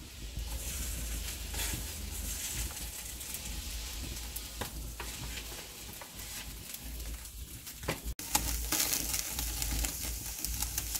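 Meat sizzling on the grill of a disposable foil-tray charcoal barbecue, a steady hiss with small crackles. After a brief break about eight seconds in, the sizzling is louder.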